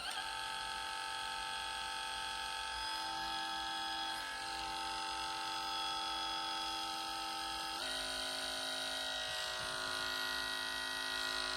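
Joyzze Raptor cordless grooming clipper running steadily with a high motor and blade hum. About eight seconds in the pitch changes abruptly as it is switched up a speed.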